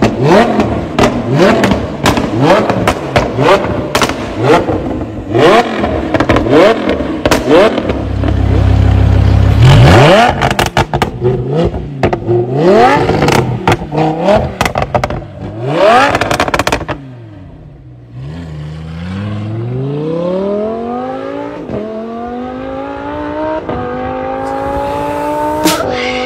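Lamborghini Huracan LP610-4's V10 through a Fi Exhaust valvetronic cat-back, revved again and again in quick blips with sharp cracks and pops as the revs drop. After a brief lull about two-thirds through, the engine pulls in one long rise in pitch as the car accelerates.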